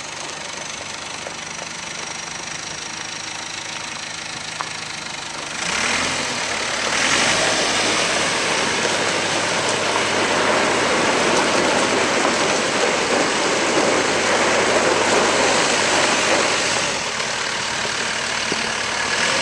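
Terex 760 backhoe loader's Perkins 90 hp diesel engine running at idle, then revved up about six seconds in and held at higher speed, dropping back toward idle near the end.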